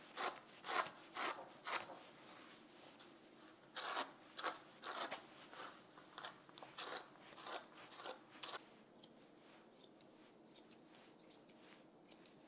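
A grooming brush stroking through a Havanese's long, silky tail hair, about two brisk strokes a second with a pause of a couple of seconds after the first few. From about eight and a half seconds in, the strokes become fainter and lighter.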